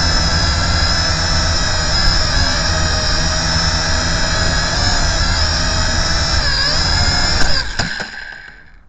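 Small high-revving motor whining over a rough low rumble, its pitch wavering up and down. It cuts out suddenly near the end and dies away.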